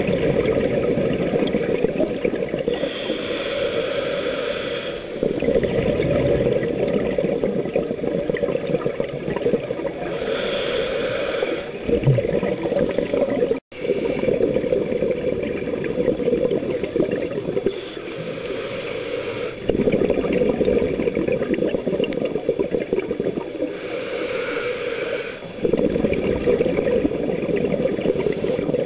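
Scuba diver breathing through a regulator, heard underwater: a short hiss of each inhalation alternates with a longer spell of rumbling exhaled bubbles, over several breaths. The sound cuts out for an instant about halfway through.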